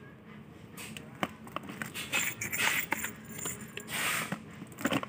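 Small cardboard boxes being handled on a shop shelf: scattered clicks and short scraping rustles, strongest in the middle and again near the end.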